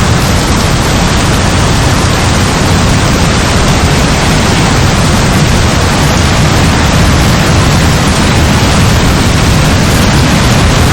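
Heavy rain falling in a steady, loud, unbroken hiss.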